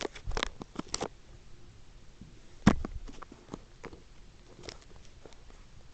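A few sharp clicks and knocks: a cluster in the first second, one louder knock nearly three seconds in, then fainter ticks.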